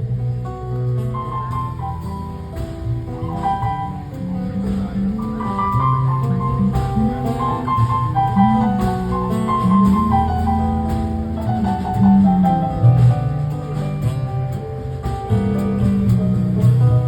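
Live band music, an instrumental passage without singing: a melodic lead line over bass notes and light percussion.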